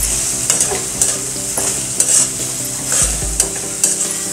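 Chopped onions with peanuts and green chillies sizzling in hot oil in a metal kadhai, while a metal spatula stirs them, scraping and clinking against the pan two or three times a second over the steady sizzle.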